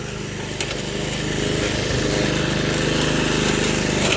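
Toro 53 commercial lawn mower's 5 HP Suzuki engine running steadily, getting louder from about a second in, with a couple of short knocks as the mower chews through brush and a small pine seedling.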